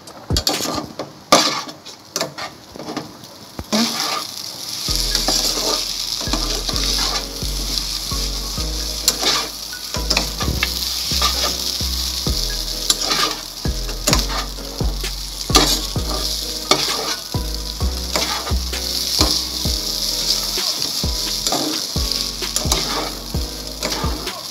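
Chow mein noodles being stir-fried in a pan: a metal spatula scrapes and knocks against the pan again and again as the noodles are tossed. The noodles sizzle steadily from about four seconds in.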